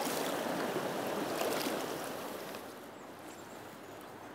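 Rushing water of a river rapid, a steady noise that drops to a fainter flow about two and a half seconds in.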